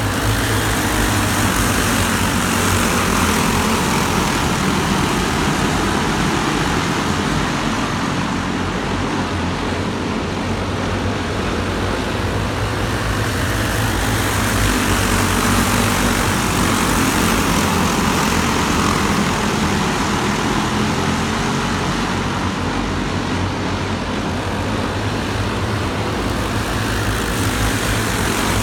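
Several racing go-kart engines running at speed around a track, their sound swelling and easing every several seconds as the karts pass.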